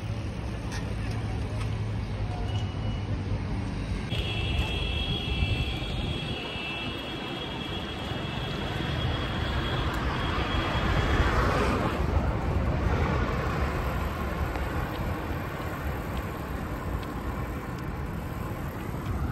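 Wind rumbling over a phone microphone on a moving bicycle, with road noise underneath. A high, steady whine joins it from about four seconds in until about ten, and a rushing swell builds to the loudest point a little past the middle, then fades.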